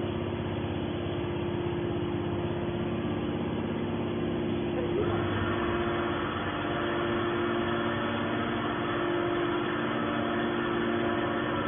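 Horizontal metal scrap baler's hydraulic machinery running with a steady hum made of several held tones. About five seconds in, a higher steady whine joins and holds.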